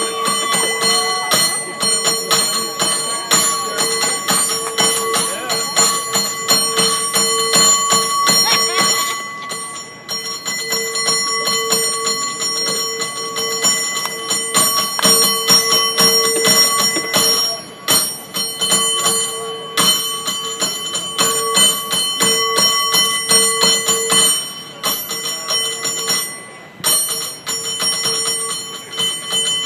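San Francisco cable car bell rung by hand in a fast, rhythmic stream of strikes, its ringing tone carrying on between hits. It pauses briefly a few times.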